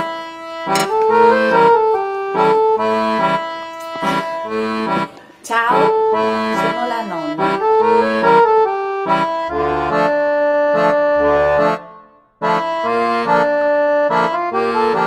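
Accordion music playing a tune over repeating chords, with short breaks about five seconds in and again just past twelve seconds.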